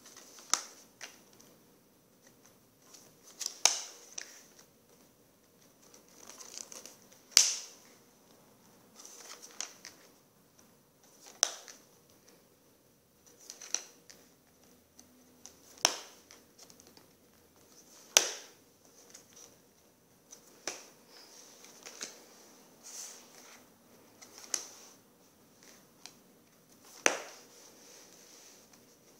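Stiff card strips of a spiral-bound flip book being turned over by hand, each landing with a sharp papery flap, about one every two seconds, with soft rustling of the pages between.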